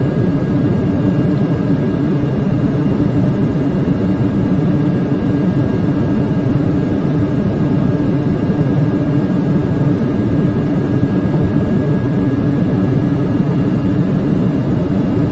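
Steady hum and air rush inside a Boeing 747-400 cockpit on the ground, with a thin high whine held steady over it.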